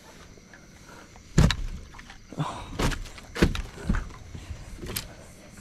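Several sharp thumps and knocks on a boat's deck, about five in all starting about a second and a half in, as a small barramundi is landed with a landing net.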